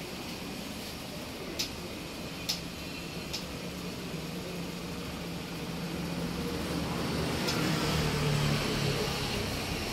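Steady background hum and hiss with three short, sharp clicks in the first few seconds; the hum grows louder past the middle.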